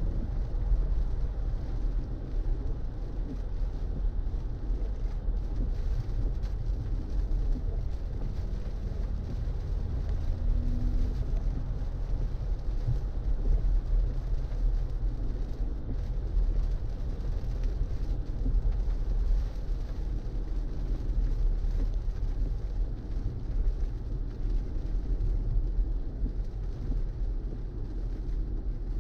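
Steady low road and tyre rumble from a BMW i4 M50 electric car driving along, with no engine note.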